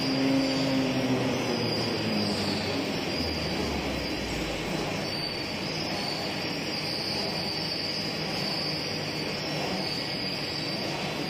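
Corrugated cardboard production line running: steady machinery noise with a high, wavering whine. A lower hum fades out in the first second or two.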